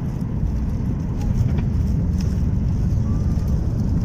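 Airliner's landing roll heard from inside the cabin over the wing: a steady, loud low rumble of the wheels on the runway and the engines, growing louder about a second in as the ground spoilers come up.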